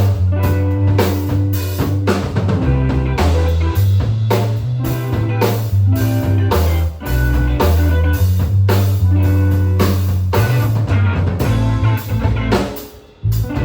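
Live band playing an instrumental passage, with guitar over a bass line and drum kit keeping a steady beat. The band drops out briefly about a second before the end, then comes back in.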